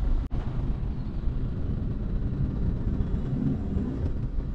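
Steady low rumble of a vehicle driving, engine and road noise heard from inside the cabin, after a brief cut-out just after the start.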